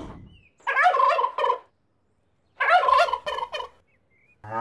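Two gobbling calls like a turkey's, each about a second long and about two seconds apart, coming from a hidden loudspeaker.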